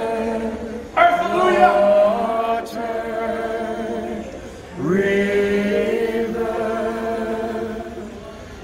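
A group of voices howling like wolves in long, overlapping held notes. Fresh howls come in about a second in and again about five seconds in, each sliding up in pitch at its start before holding.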